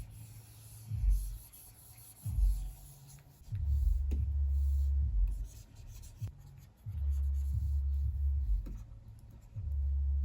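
Stylus drawing on a Wacom Cintiq 24 Pro pen display: soft rubbing pen strokes on the screen surface, a few short strokes followed by longer ones lasting a second or two.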